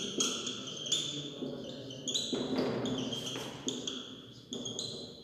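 Marker pen writing on a whiteboard: a series of short high squeaks as each stroke is drawn, with light taps as the tip meets the board, fading near the end.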